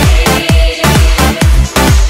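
Electronic dance music with a heavy, deep kick drum beating about twice a second.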